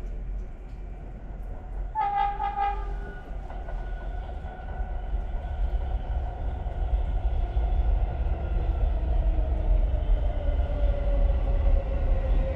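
NYC subway R143 train approaching: one short horn blast about two seconds in, then a fainter whine that slowly falls in pitch while the train's low rumble grows louder as it nears.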